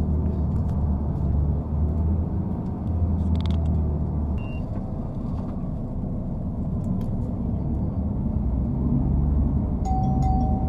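Low rumble of a TransJakarta bus's engine and running gear, heard from inside the cabin. The deepest part of the rumble eases about four seconds in as the bus slows alongside a station platform, and builds again near the end as it pulls on.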